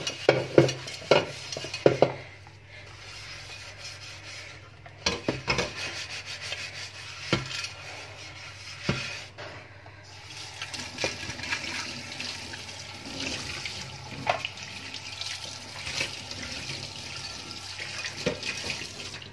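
A ridged nonstick grill pan scrubbed with a sponge in a stainless steel sink, with quick rubbing strokes and a few knocks of the pan against the sink. From about halfway, tap water runs steadily as the soapy pan is rinsed.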